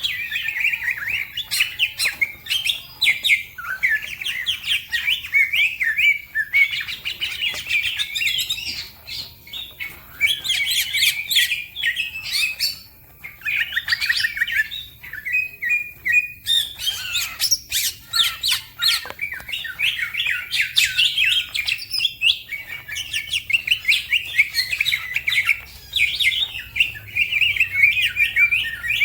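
Green leafbird (cucak ijo) singing continuously, a fast, varied chattering song of rapid chirps and trills with only brief pauses.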